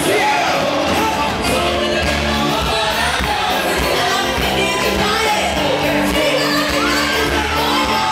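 Live gospel music: a group of singers singing into microphones over a keyboard-led band with a steady beat.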